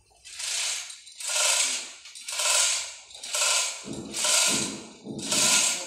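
Chain hoist's chain rattling through the block in even hauls, about one burst a second.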